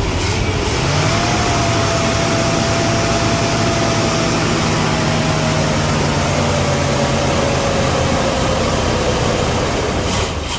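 1976 Dodge D200 pickup's engine running at idle with a steady whine over it. It picks up slightly about a second in, holds, then stops near the end. The owners can't yet explain why it won't start on its own or run off the fuel pump.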